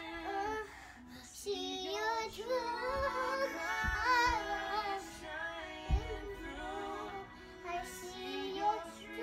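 A song with a high-pitched singing voice over sustained accompaniment, with a few low thumps underneath.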